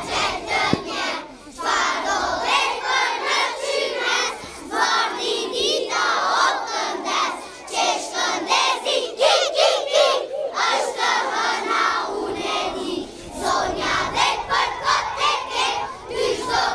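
A large group of young children shouting and cheering at once, many high voices overlapping in a loud, uneven clamour.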